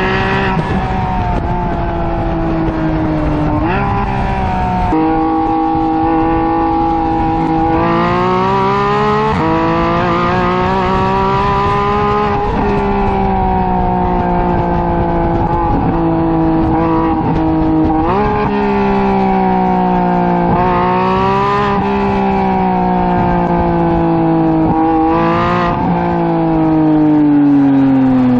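Porsche 991.1 GT3's 3.8-litre flat-six engine running through an aftermarket Top Speed center exhaust while driving. The pitch climbs under acceleration and shifts abruptly several times with gear changes, then falls away smoothly as the car slows near the end.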